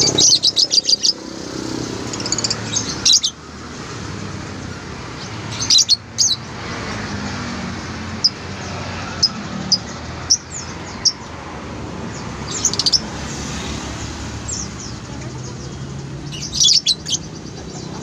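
Caged lovebirds chirping: sharp, high-pitched chirps in quick clusters every few seconds, over steady background noise.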